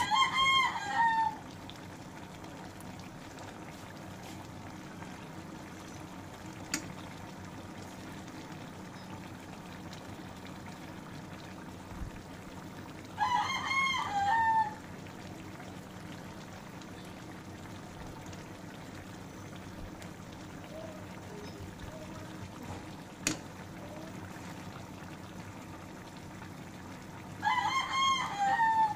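A rooster crowing three times, each crow about a second and a half long and roughly fourteen seconds apart, over a low steady hum. Two faint clicks fall between the crows.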